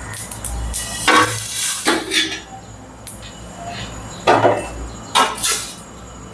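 Dry-roasted whole spices scraped and tipped out of a nonstick frying pan, then the empty pan knocked back down on the gas stove's pan support, in a few separate bursts of scraping, rattling and clanking.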